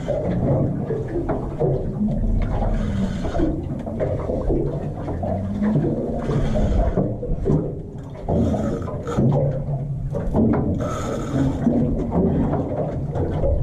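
Spinning reel cranked under heavy load while fighting a big fish, giving rasping, rubbing noises in short repeated bouts over a steady low hum.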